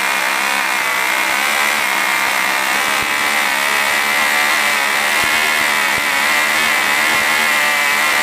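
Tandem pair of Cox .049 two-stroke glow engines geared together, running at high speed with a steady, high-pitched scream whose pitch wavers only slightly.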